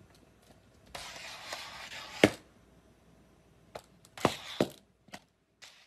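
A cat's plastic cone collar knocking and scraping against tile floor and wall: a few sharp knocks, the loudest about two seconds in, with a scraping rustle before it and a quick pair of knocks around four seconds.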